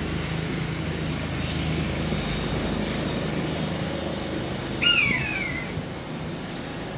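A steady low motor hum, with one loud falling animal call about five seconds in.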